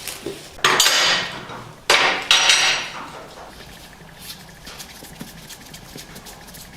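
Two short bursts of metallic clattering about a second apart, followed by faint light ticks.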